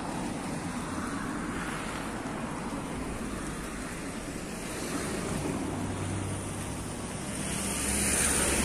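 Wind noise on the microphone over road traffic, with a car's engine and tyres growing louder as it approaches near the end.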